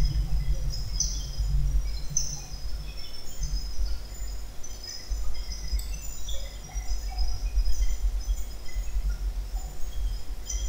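Background noise on the narrator's microphone: a steady low rumble with scattered short, faint high chirps.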